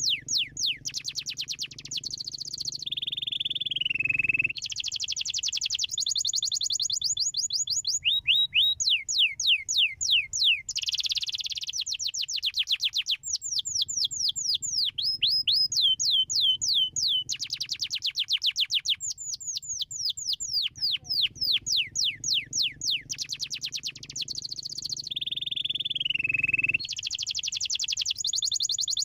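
Domestic canary singing a continuous song of fast trills, each made of rapid downward-sweeping notes, the trill changing every second or two, with a longer falling note twice.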